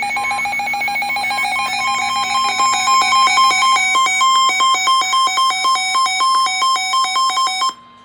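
Weather-radio alert tones: a steady warning alarm tone near 1 kHz with a rapid, loud beeping alarm over it that alternates between two pitches. The beeping cuts off abruptly near the end, leaving only the steady tone, now faint. This signals an incoming warning, here a flash flood warning.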